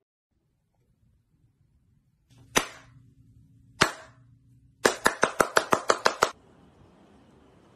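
Hand claps: two single claps about a second apart, then a quick run of about ten claps at roughly seven a second.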